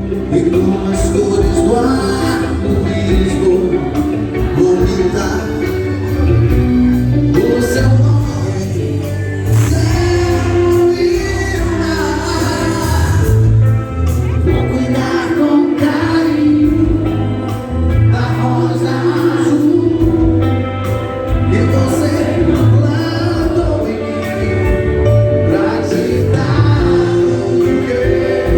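Background music: a gospel song with full band accompaniment and singing voices.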